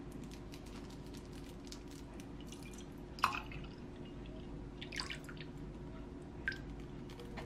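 Soy milk poured from a carton into a glass mug: liquid splashing and glugging, with one sharp splash about three seconds in and two smaller ones later.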